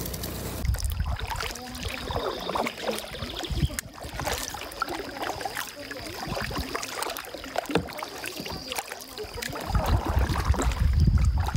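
A double-bladed kayak paddle dips and pulls through river water, with irregular splashes and drips off the blades. A low rumble comes in near the end and becomes the loudest sound.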